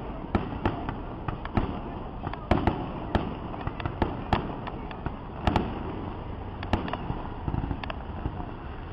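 Aerial fireworks shells bursting at a distance: a run of sharp bangs and pops at uneven intervals, about two a second, over a steady background noise.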